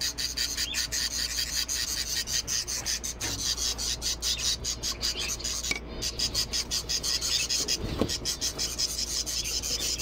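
A phone scraping and rubbing against the wire mesh of a pigeon cage as it is pushed at a narrow opening: a fast, irregular rasp of many small scrapes.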